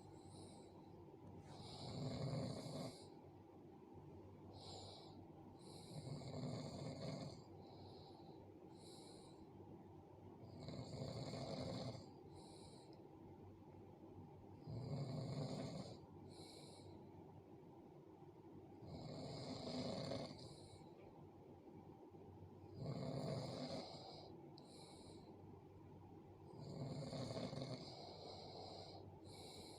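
A sleeping person snoring heavily, about seven snores, one every four seconds or so, each a low rasp about a second long with an airy hiss of breath, and softer breathing between them.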